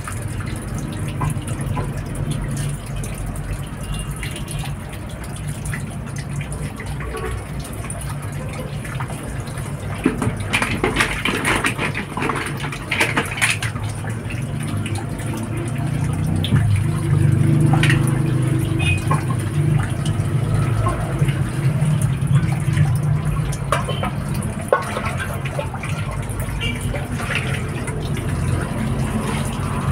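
A steady low hum with scattered clicks and scrapes of shells being handled in a bowl of cooked green mussels, busiest about a third of the way in.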